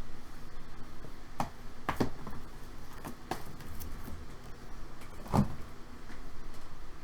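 A few sharp knocks and taps of objects being handled on a table, the loudest about five and a half seconds in.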